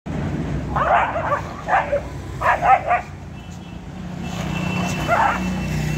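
German shepherd puppy barking in short, high yaps: a few quick bunches in the first three seconds, then one more about five seconds in. A steady low hum runs underneath and grows louder in the second half.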